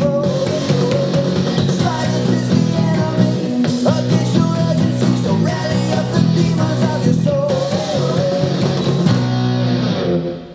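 Up-tempo rock song with singing, drums and guitars, an electric bass guitar playing steady low notes along with it; the music cuts off near the end.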